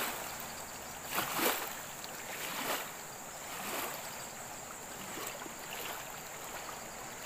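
Shallow river current rushing steadily over a rocky bed, with a few brief louder surges of splashing, the strongest about a second and a half in.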